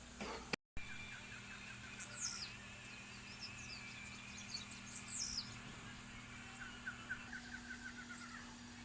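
Several wild birds calling. There are two high, sharp down-slurred whistles, about two and five seconds in, with scattered chirps between them, and rapid runs of quick repeated lower notes near the start and toward the end, over a faint steady hum. The sound drops out completely for an instant just before one second in.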